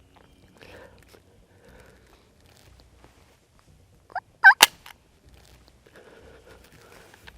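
A wild turkey gobbler gobbles once, loud and close: a short rapid rattling call about four seconds in.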